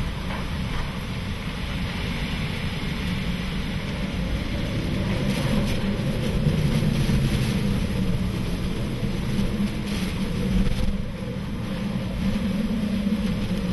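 Hurricane-force wind blowing in gusts through a street of power poles and lines, a low bassy howl under a steady rush of wind and rain, swelling louder about halfway through.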